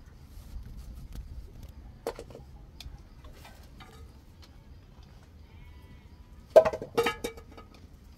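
Goat bleating: a short call about two seconds in, then two loud bleats close together near the end. Faint scattered clicks in between.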